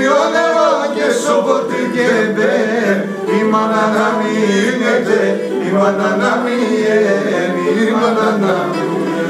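A man singing a Pontic Greek song to the Pontic lyra, a small bowed fiddle, the melody bending and wavering over a steady low drone.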